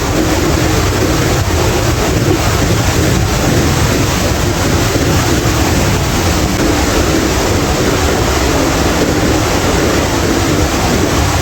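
Steady rushing of Thomson's Falls' water, with wind gusting on the microphone.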